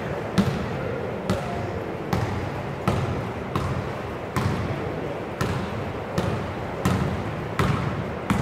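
A basketball dribbled on an indoor court floor, bouncing steadily a little more often than once a second, about a dozen bounces in all.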